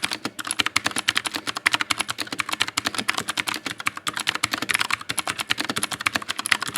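Fast, continuous typing on an ASUS ROG Falchion mechanical keyboard with clicky Cherry MX Blue switches: a rapid, steady stream of crisp key clicks.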